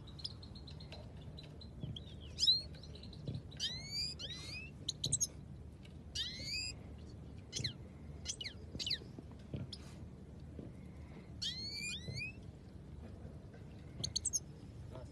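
Caged goldfinches calling: clusters of short, quickly rising chirps, heard in bursts every second or two, over a steady low hum.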